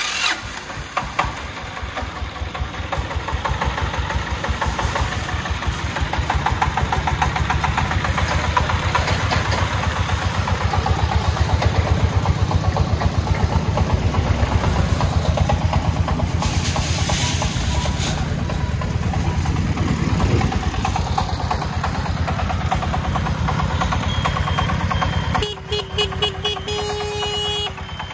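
Single-cylinder diesel engine of a three-wheeled công nông farm truck chugging with an even beat as it drives off, loudest in the middle. Near the end a horn sounds in several short toots.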